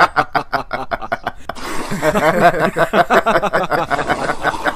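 A person laughing: a long unbroken run of quick laughs.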